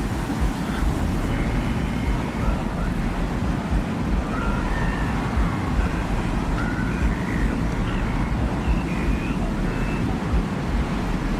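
Sound-designed desert ambience: a steady, deep rumble of wind with no breaks, and faint brief high tones coming and going over it.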